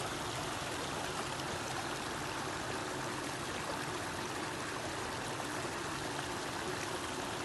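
Stream water flowing steadily, an even rushing with no breaks.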